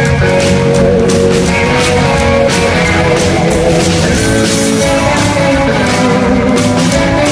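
Live rockabilly band playing loudly: electric guitar over a small drum kit and upright double bass.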